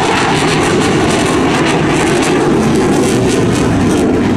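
Jet noise from a Sukhoi Su-30MKM's twin Saturn AL-31F turbofans as the fighter flies its display, a loud, steady rushing sound.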